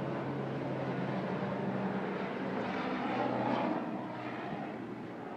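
A steady low motor drone with a rushing noise over it that swells about three seconds in and then eases off.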